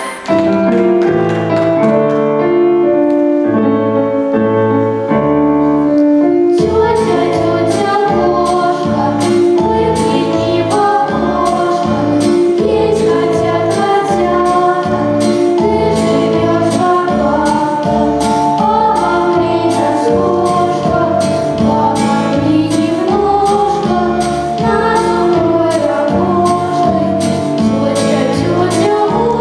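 Upbeat dance music with a group of voices singing, loud and continuous. It opens without a beat, and a steady regular beat comes in about six and a half seconds in.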